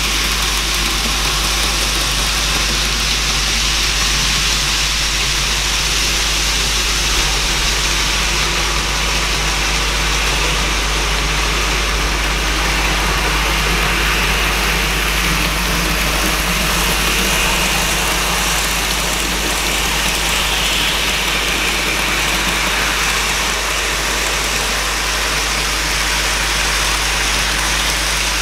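N gauge model trains running around the layout: a steady whirring rush of small motors and wheels on the rails, with a low steady hum underneath.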